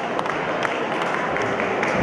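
Audience applauding, with scattered individual claps standing out from the crowd noise.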